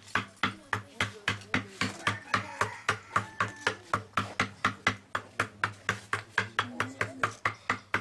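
Wooden mallet tapping a chisel into the wooden shell of a djembe to carve a symbol: quick, even knocks, about four a second.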